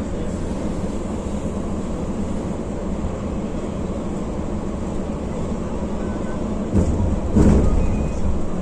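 Mercedes-Benz intercity coach at highway speed, its engine and tyre drone steady inside the passenger cabin. Two louder thumps come about seven seconds in, the second with a short rush of noise that fades away.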